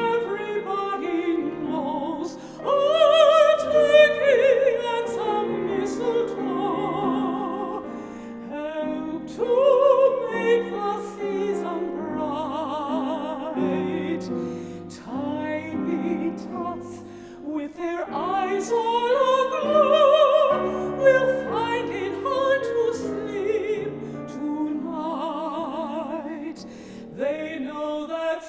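Operatic female voices singing a Christmas song with strong vibrato, over piano accompaniment.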